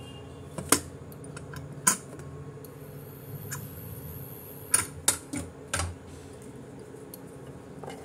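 A pressure cooker's metal lid and pot being handled as the cooker is opened: a handful of sharp metallic clicks and knocks, spaced out at first, then a quick cluster about five seconds in, over a faint steady hum.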